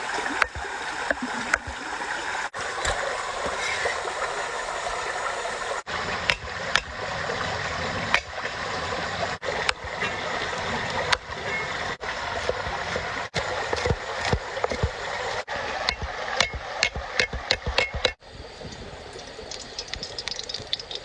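Water splashing and trickling, with many short knocks and clicks that come thicker in the second half.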